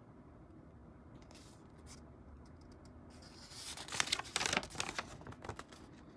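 A folded paper instruction sheet being unfolded and handled, crinkling and rustling for about two seconds starting around three seconds in, after a few faint rustles.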